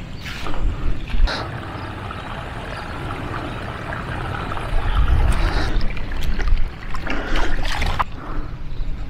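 Water running and trickling through a rice-paddy irrigation channel, a steady rushing hiss, with wind rumbling on the microphone and a few footsteps on grass.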